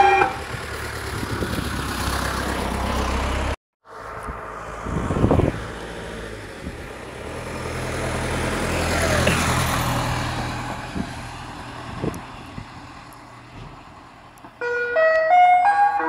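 An ice cream van's chime tune stops just after the start, leaving road and engine noise as the van drives past, its sound swelling and fading around the middle, with a brief total dropout a few seconds in. The chime tune starts up again near the end.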